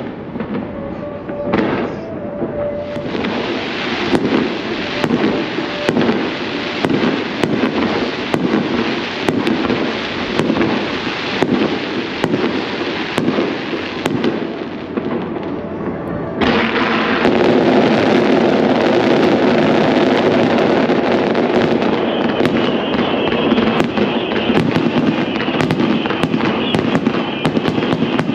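Fireworks display: aerial shells bursting about once a second. About sixteen seconds in it turns suddenly louder, into a dense, continuous crackling barrage with bangs coming faster.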